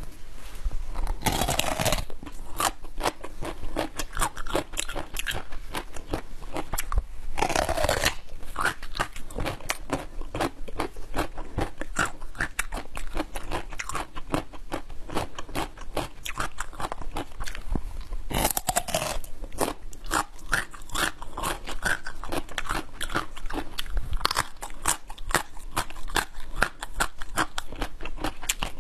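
Raw watermelon radish being bitten and chewed: steady crisp crunching, with three louder snapping bites about a second in, around seven seconds in and around eighteen seconds in.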